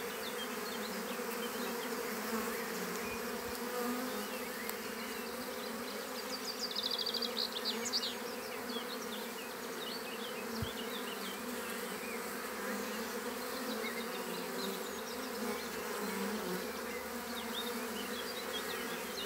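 A swarm of honeybees buzzing, a steady dense hum of many wings close by.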